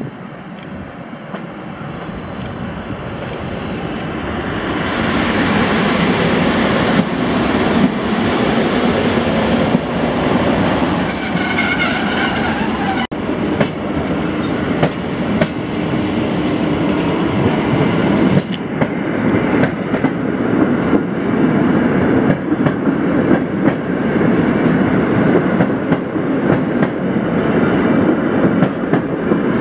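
Passenger trains running through a station. First an EP07 electric locomotive hauling coaches approaches and grows louder over the first few seconds, with a brief high squeal a little before the middle. After a cut, an EN57AKM electric multiple unit rolls past close by, its wheels rumbling and clicking over the rail joints.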